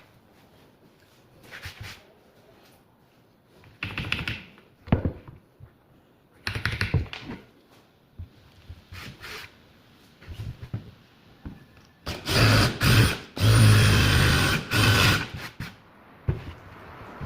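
Power tool running in two short bursts, with a strong low hum, between scattered knocks and handling noises of wood being worked.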